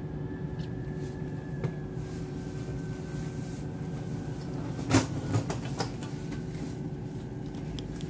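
ČD InterPanter electric multiple unit heard from inside, by the door, slowing to a stop at a station: a steady low rumble with a faint high whine that falls slightly, then a few sharp knocks about five seconds in.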